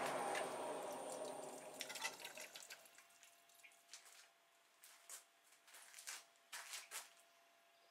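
Lathe and coolant flow dying away to a stop over the first two seconds or so, then irregular single drips of cutting coolant falling onto the machine.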